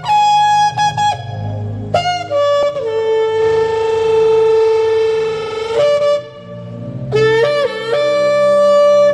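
Shofar blown in a series of blasts. It starts with short calls that break off and step between pitches, then holds one long steady note for about three seconds, then sounds another held blast near the end.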